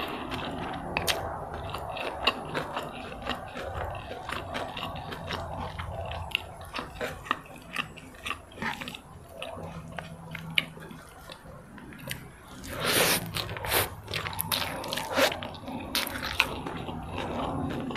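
Close-up eating sounds: chewing and biting fried rice vermicelli with bean sprouts, crunching with many small wet mouth clicks. A louder, longer burst of noise comes about thirteen seconds in, and another shorter one about two seconds later.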